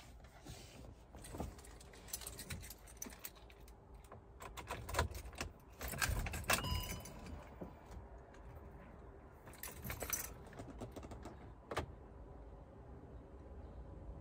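A bunch of keys jangling and clicking on the ring hanging from a van's ignition key as the key is handled in the ignition, in scattered bursts of rattling.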